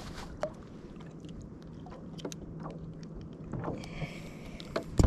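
Water lapping and splashing against the side of a paddleboard while a caught fish is held in the water and handled, with scattered light clicks and one sharp knock near the end.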